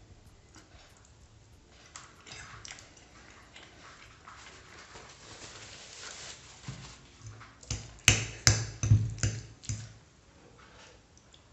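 Mealtime handling sounds: a paper napkin rustling against the mouth, then a metal fork clinking and scraping in a ceramic bowl of tortellini, a cluster of sharp clicks in the second half being the loudest part.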